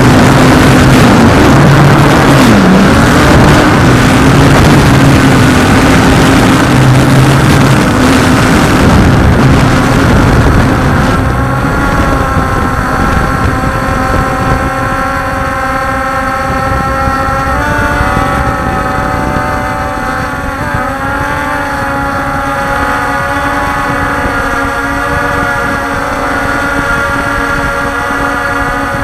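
Walkera Scout X4 quadcopter's electric motors and propellers running in flight, heard from on board. Louder and rougher for the first ten seconds or so, then a steadier whine of several tones that wavers in pitch twice near the middle.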